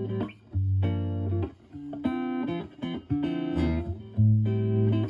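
Clean electric guitar (Stratocaster with HSH pickups) playing chords and single notes through a Joyo JF-09 analog optical tremolo pedal, the sustained notes pulsing quickly and evenly in volume.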